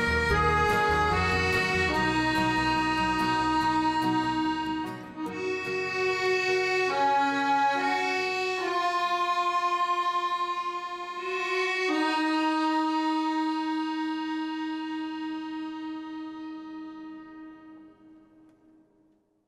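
Instrumental background music: held reedy chords over a low bass part that drops out about five seconds in, after which the chords change slowly, then ring on and fade away to silence near the end.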